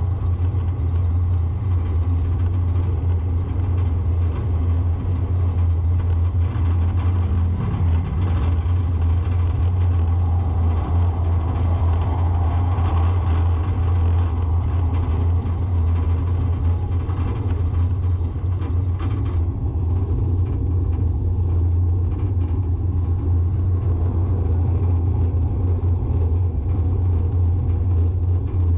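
Steady low rumble of a car driving along a paved road: engine and tyre noise from the vehicle carrying the camera. The higher hiss drops away about two-thirds of the way through.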